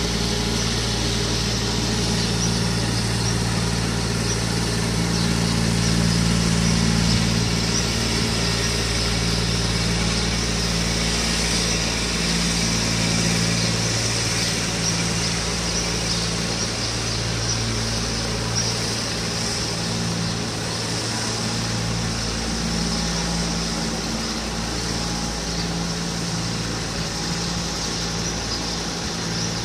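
Vehicle engine idling steadily: a low hum with a broad hiss over it, a little weaker in the second half.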